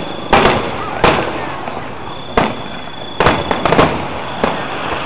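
Aerial firework shells bursting at a distance: about eight sharp bangs in five seconds, each with a short echo, with a quick cluster of three or four bangs about three and a half seconds in. A thin steady high tone runs underneath for part of the time.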